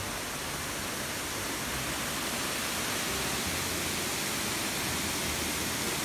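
Mountain stream rushing, a steady even hiss of running water.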